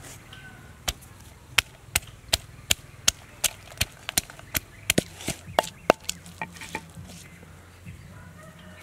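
Pestle pounding garlic cloves and red chillies in a wooden mortar: sharp knocks at about three a second, stopping about six seconds in.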